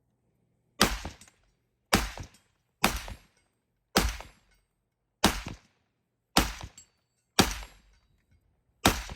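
Eight rifle shots fired one at a time, roughly a second apart, each a sharp crack with a short echoing tail.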